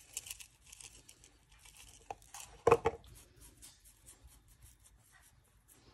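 Herb and garlic seasoning rattling out of a plastic shaker as it is shaken over a raw steak, a quick run of small gritty ticks, with one louder knock about three seconds in. Fainter rubbing follows as the seasoning is worked into the meat by hand.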